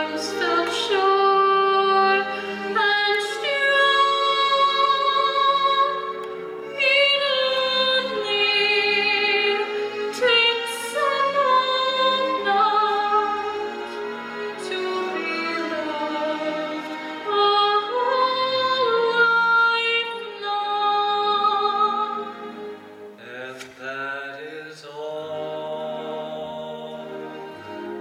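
Stage-musical singing with vibrato on long held notes; about three quarters of the way through, the sound thickens as more voices come in.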